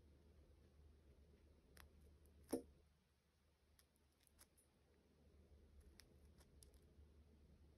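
Near silence with a faint low hum and a few scattered soft clicks; one short knock about two and a half seconds in is the loudest sound.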